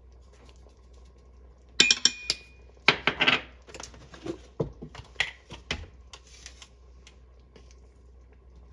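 Kitchen utensils and dishes clinking and tapping in a quick, uneven string of sharp clicks that starts about two seconds in and dies away after about four seconds.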